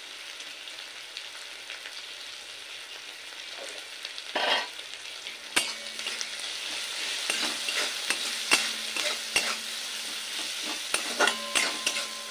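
Sliced onions frying in oil in an aluminium kadai, sizzling steadily as they soften. From about halfway a long metal spatula stirs them, with repeated sharp clicks and scrapes of metal against the pan over a louder sizzle.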